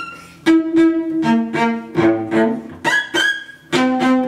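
Cello bowed in a quick phrase of short, separate notes, each with a sharp start, stepping up and down in pitch.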